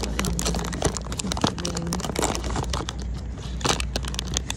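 Thin plastic wrapper crinkling and tearing as it is handled and pulled open by hand, a dense run of irregular sharp crackles, with a steady low rumble underneath.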